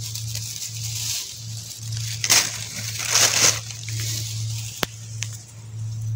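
Crunching and scraping noises, with two louder rushes near the middle and a single sharp click later, over a steady low hum.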